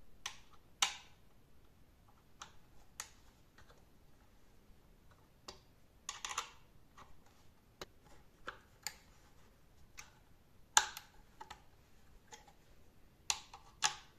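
Hex key and bolts clicking and tapping against the plywood front panel of a speaker test box as the panel's bolts are worked loose. Quiet, irregular sharp clicks, with a few louder ones and a couple of quick clusters.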